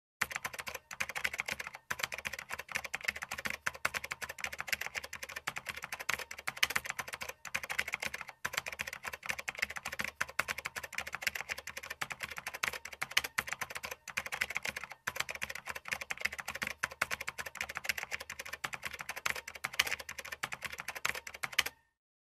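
Typing on keys: many quick clicks a second, running on with a few short pauses, then stopping suddenly near the end.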